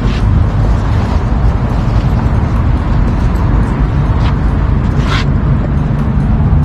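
Wind buffeting the camera's microphone on an open seafront: a loud, steady, fluttering low rumble, with two brief rustles about four and five seconds in as bags are handled.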